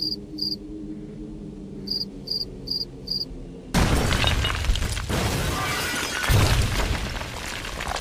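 Field crickets chirping in short bursts, two and then four in quick succession, over a low steady hum: the comic 'crickets' sign of an awkward silence. About 3.7 s in, a sudden loud building explosion breaks in, with shattering glass and crackling debris that runs on and swells again near the end.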